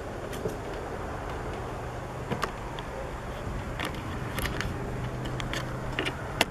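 Steady outdoor rumble with a low hum through the middle seconds, and a handful of sharp clicks or taps scattered through it.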